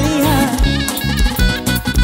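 Live band dance music with a steady beat; a melody line glides up and down in the first half-second, then held notes.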